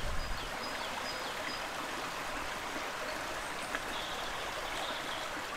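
Steady rush of running water, like a stream, with a few faint high chirps over it.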